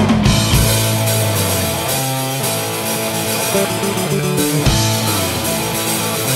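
Rock song with electric guitar and bass holding sustained chords that change every second or so, while the drum kit mostly drops out; dense drumming returns right at the end.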